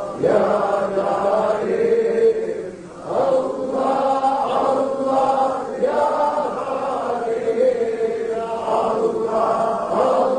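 Loud Sufi dhikr: a man chanting the name "Allah" into a microphone in long, drawn-out sung phrases, with a short break about three seconds in.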